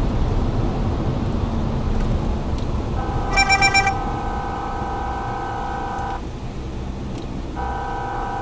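Vehicle driving, with steady engine and road rumble. About three seconds in, a steady horn tone starts with a short pulsing blast, stops about three seconds later, and sounds again near the end.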